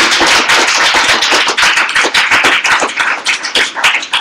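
Audience applauding, a dense patter of many hands that thins to scattered claps near the end.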